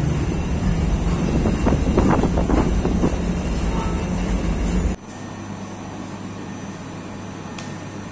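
Bakery machinery running with a steady low hum and some rattling clatter about two seconds in. About five seconds in the sound cuts suddenly to a quieter, steady motor hum.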